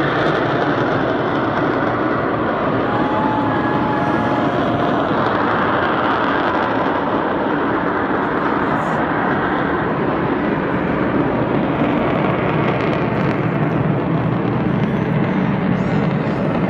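Steady jet roar of an AV-8B Harrier's Rolls-Royce Pegasus turbofan passing overhead. A faint short whistle-like tone shows about three seconds in.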